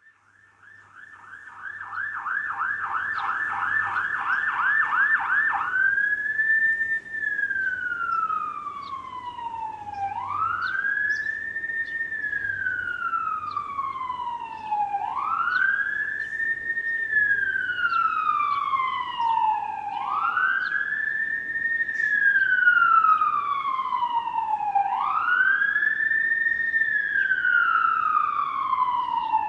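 Emergency vehicle siren approaching. It fades in on a fast yelp of about three sweeps a second, then about six seconds in switches to a slow wail that rises quickly and falls away over about four seconds, over and over, with echoes trailing each sweep.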